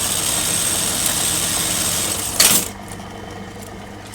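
Juki buttonhole sewing machine running steadily for about two and a half seconds, then a loud clack, after which only a quieter motor hum remains.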